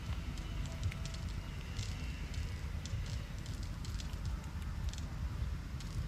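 Water spinach plants being pulled up by hand: irregular crisp crackling and rustling of stems and leaves, over a steady low rumble.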